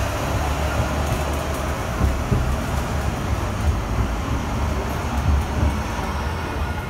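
Interior running noise of an Edinburgh tram (CAF Urbos 3) on the move: a steady low rumble with an even hiss over it.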